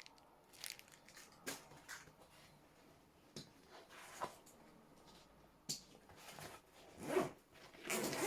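A bag's zip being pulled open, with scattered short rustles and knocks of gear being handled and a longer zip rasp near the end.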